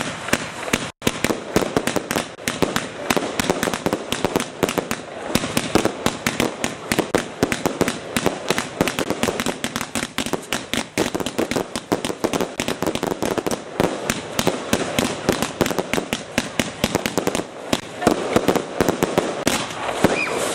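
Fireworks going off in a dense, continuous barrage of rapid bangs and crackles, many per second.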